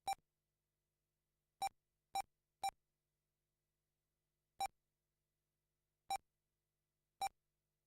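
Seven short, identical electronic beeps at irregular intervals from an RC race timing system. Each beep marks a car crossing the lap-counting loop.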